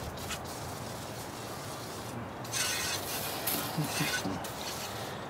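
Hand-handling noises from work on an outboard motor's powerhead, rubbing and small mechanical sounds, with a short hissing rush of noise a little past halfway.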